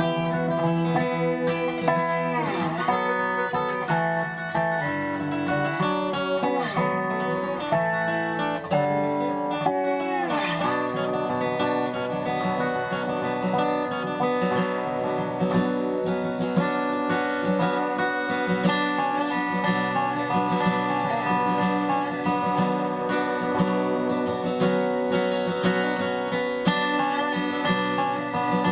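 Instrumental dobro music: a resonator slide guitar playing a bluegrass-style tune, sliding down in pitch between notes a few times in the first half.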